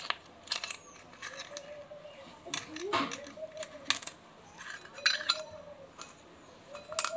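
Metal coins clinking and scraping against a small steel bowl as they are picked up and moved, in scattered sharp clicks. A soft rising-and-falling coo repeats every couple of seconds in the background.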